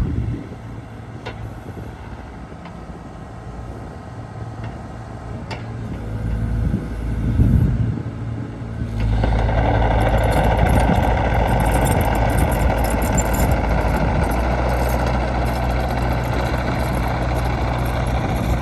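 Diesel engine of a 2016 Hyundai Robex 80CR-9A midi excavator running at a low idle. About nine seconds in it speeds up and runs louder and steady to the end.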